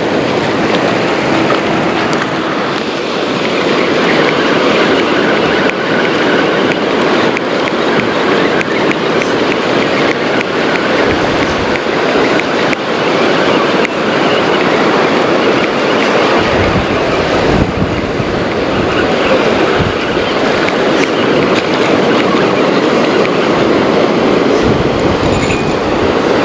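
Ocean surf washing in with wind on the microphone: a steady rushing noise, with low wind gusts thumping about two-thirds of the way through and near the end.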